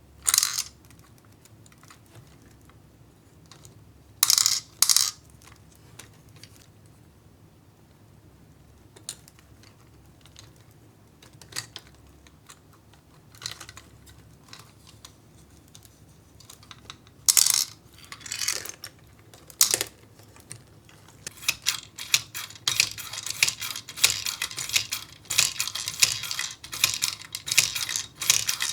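Small hard ramune candies and plastic kit parts clicking and clattering on plastic. There are a few sharp rattles early, scattered light clicks, and then, about three quarters of the way in, a dense continuous rattle of many small pieces.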